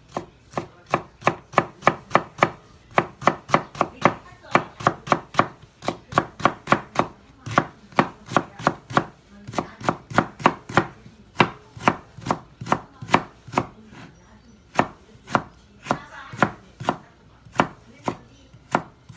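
Kitchen knife chopping food on a cutting board in a steady rhythm of about two to three strokes a second, slowing to sparser strokes after about fourteen seconds.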